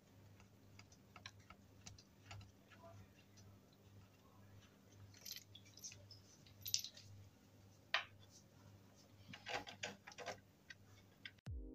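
Faint, scattered clicks and taps of small metal screws and fittings being handled and turned in by hand on a wooden cot frame. Background music starts just before the end.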